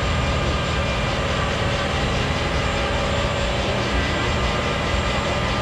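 Scania truck's diesel engine held at high revs during a burnout, its rear tyres spinning on the tarmac; a loud, steady, unbroken sound.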